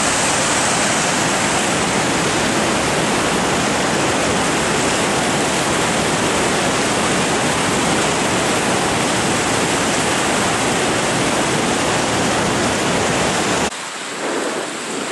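Floodwater rushing through an open dam sluice in a steady, loud, unbroken churn of whitewater, the river running high and fast in spring flood. About a second before the end it cuts suddenly to a quieter, thinner rush of water.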